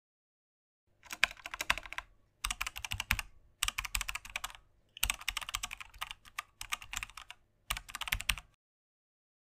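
Computer keyboard typing sound effect: quick runs of key clicks in several bursts with short pauses between them, starting about a second in.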